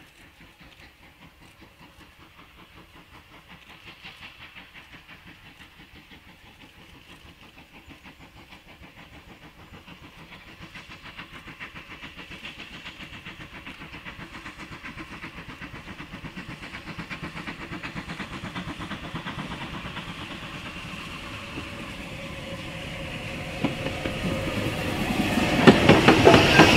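Two three-cylinder Bulleid 'Spam Can' Pacific steam locomotives chuffing, their fast exhaust beats growing steadily louder as they approach, loudest near the end as the train passes close by.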